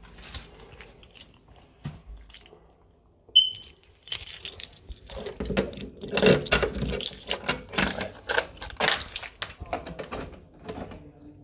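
Keys jangling and metal rattling as a front door's locks and security chain are worked open: a sharp click with a brief high squeak about three seconds in, then a run of clicks and rattles from about five seconds on.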